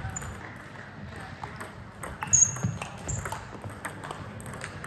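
Table tennis rally: the plastic ball clicking off rackets and the table in an irregular quick back-and-forth. About two and a half seconds in comes the loudest hit, together with a short high squeak.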